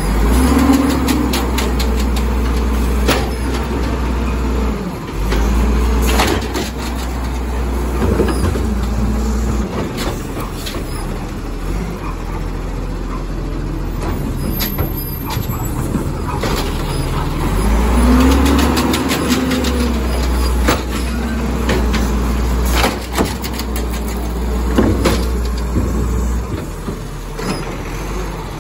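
Automated side-loader garbage truck working its hydraulic arm at the curb: the diesel engine revs up to drive the arm as it lifts and dumps wheeled carts, twice over, with clanks and bangs of the carts and the arm.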